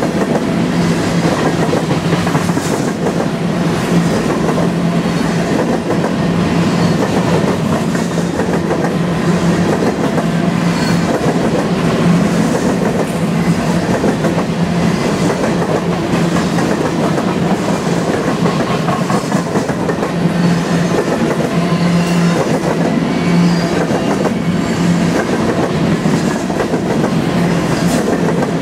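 Freight train's covered hopper cars rolling steadily past at close range: the continuous rumble of steel wheels on the rails with a clickety-clack over the rail joints.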